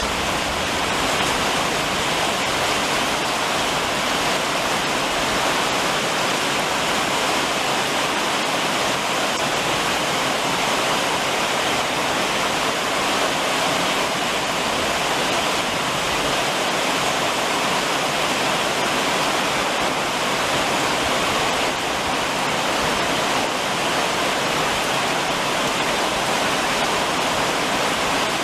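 Heavy summer rain falling on a roof: a loud, dense, even hiss that holds steady throughout.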